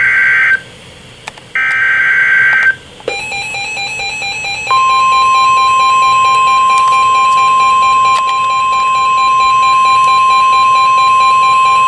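Emergency Alert System tones. Two short, harsh, buzzy bursts of SAME header data open the alert. About three seconds in a rapidly pulsing beep starts, and from about five seconds in a single steady, high alarm tone holds loud, announcing a new weather warning.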